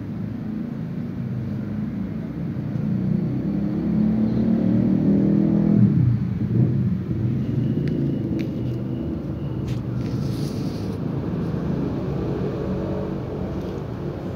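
An engine running steadily. It grows louder to a peak about six seconds in, drops in pitch, then eases off.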